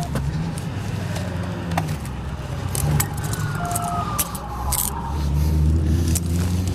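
A vehicle engine running close by, a steady low rumble, with scattered sharp clicks. A short beep sounds just past halfway, and a tone slides down in pitch for about two seconds around the middle.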